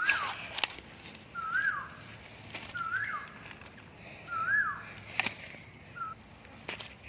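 A repeated whistled call, five times: each a short note that rises and then sweeps down, about once every second and a half. A few sharp clicks or snaps fall between the calls.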